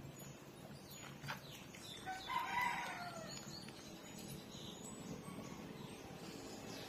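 A rooster crows once in the background, a single pitched call about a second long that starts about two seconds in.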